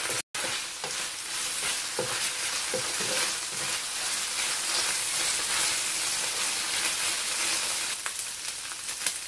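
Diced chicken sizzling in oil in a nonstick frying pan, stirred with a wooden spatula that scrapes and knocks against the pan now and then. The sound drops out for a moment just after the start.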